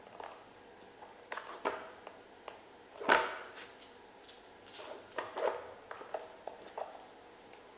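Dog nosing and shoving a hard plastic puzzle toy box across a wooden floor: scattered knocks, clicks and scrapes, the loudest about three seconds in.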